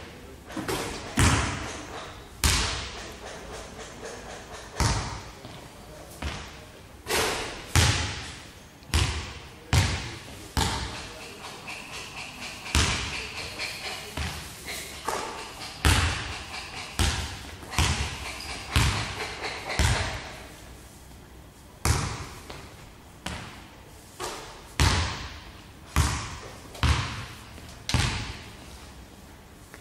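Basketball bouncing on a hardwood gym floor and striking the backboard and rim during shooting practice, one impact every second or two, each echoing in the hall.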